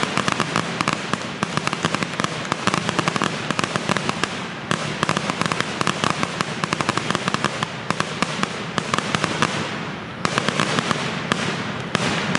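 Aerial fireworks going off in dense volleys: continuous rapid crackling and popping from many bursts at once, with fresh waves of bursts setting in several times.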